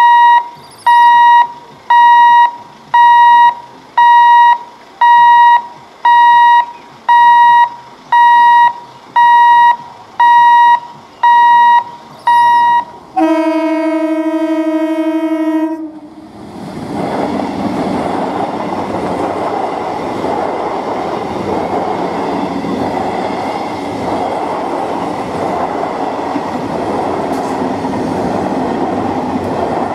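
A level-crossing warning signal beeps loudly and evenly about once a second, thirteen times. An electric multiple unit (EMU) local train then sounds its horn in one blast of about three seconds. The train runs past close by, its wheels and coaches rumbling and clattering steadily.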